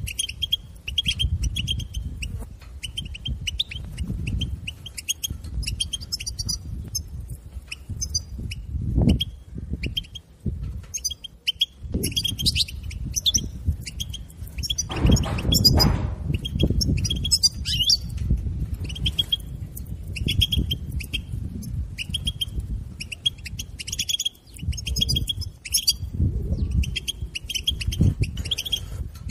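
European goldfinch chattering: rapid runs of short, high chirps repeated throughout, the call used to stimulate caged goldfinches into song. A low rumbling noise lies underneath, loudest about halfway through.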